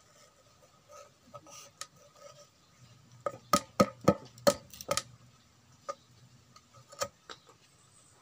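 Machete blade chopping and shaving a thin bamboo stick held against a wooden block: a quick run of sharp clicks about three to five seconds in, with scattered single clicks before and after.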